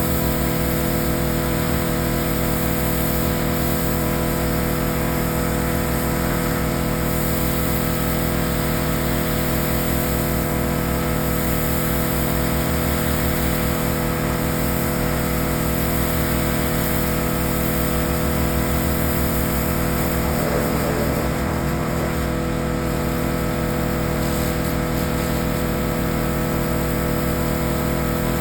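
Pressure washer's small engine running steadily at a constant speed, with the hiss of the spray.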